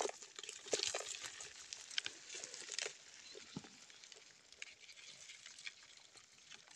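Live small fish and crabs flapping and scrabbling in a plastic bucket while a mesh net is shaken out over it. The sound is irregular light taps and crackles, busiest in the first three seconds and sparser after.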